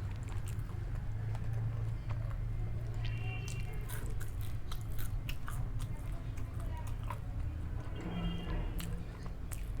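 Close-miked chewing and biting into pizza and fries, with sharp wet mouth clicks and occasional crunches, over a steady low hum.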